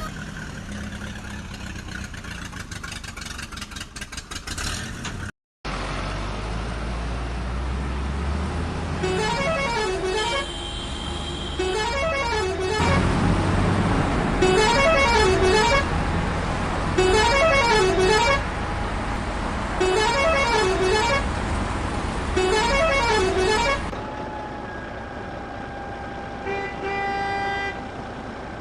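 Added vehicle sound effects: a low engine rumble with a pitched warbling tone that glides up and down over and over, then a short horn honk near the end.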